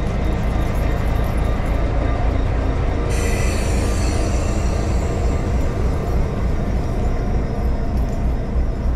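A diesel locomotive and boxcars passing at close range, with a steady rumble of wheels on rail. A high-pitched wheel squeal joins in about three seconds in.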